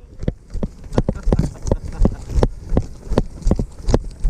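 Footsteps of a person jogging over rough ground, a steady run of short thumps about three a second, picked up by a camera strapped to the runner's chest plate carrier.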